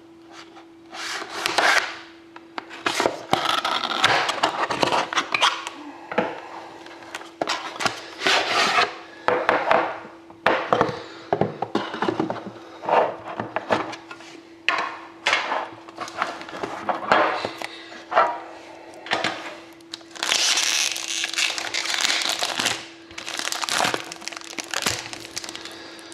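Irregular crackling, rustling and knocking as a sealed Upper Deck The Cup trading-card tin is handled, unwrapped and opened, with a steady low hum underneath.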